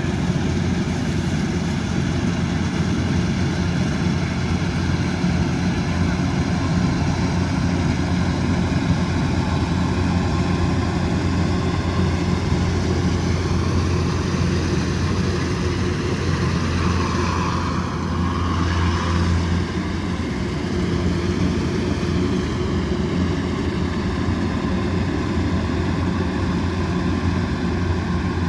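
Kubota DC108X combine harvester's diesel engine running steadily under harvesting load, a constant mechanical drone with a brief shift in its note about two-thirds of the way through.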